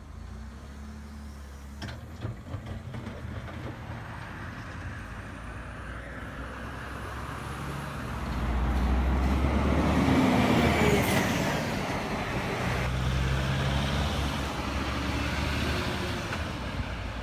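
Truck engine sound from a radio-controlled Bruder MAN tipper truck, a steady low diesel-like running note. It swells to its loudest from about eight to eleven seconds in as the truck drives by loaded with snow.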